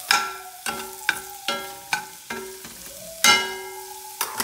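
Metal spoon stirring mushrooms, onions and peppers in a cast-iron skillet, knocking against the pan about eight times with a short ringing clink each time, the loudest about three seconds in, over a steady sizzle of frying.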